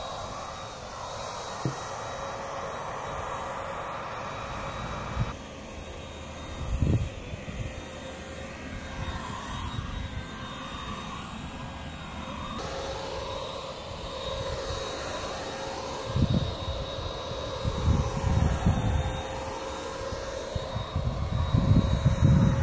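Handheld electric paint sprayer running steadily, a constant motor whine over the hiss of the spray as it lays Plasti Dip on a car body. Intermittent low rumbles come and go, loudest near the end.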